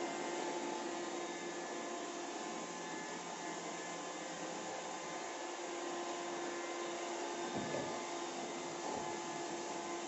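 iRobot Roomba 780 robot vacuum running in spot-cleaning mode as it spirals over a woven floor mat: an even whirr of its suction fan and brushes with a steady hum.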